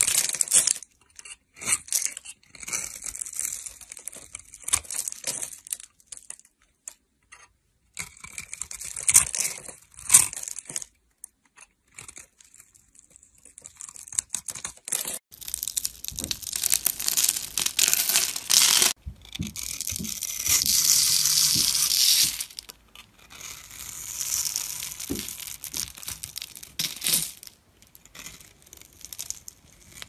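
Knife slicing through bars of dry soap scored into a grid, with crisp crunching and crumbling as the small soap cubes and slivers break away. It comes in bursts of strokes separated by brief quiet gaps.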